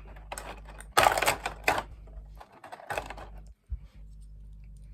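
Small plastic model-kit parts clicking and clacking as they are handled and snapped together, with a dense run of clacks about a second in and a few single clicks later.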